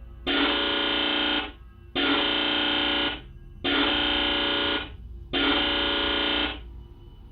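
A harsh electronic alarm tone sounds in four long, identical blasts with short gaps between them, over a low steady hum.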